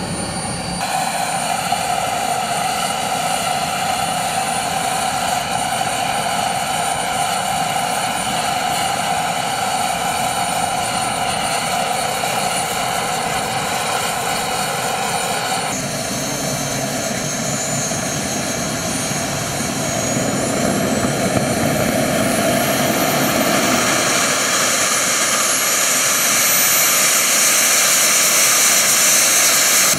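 Small gas turbine of a radio-controlled model jet running with a steady high whine. In the second half a whine climbs steadily in pitch over several seconds and then holds high, as the turbine spools up.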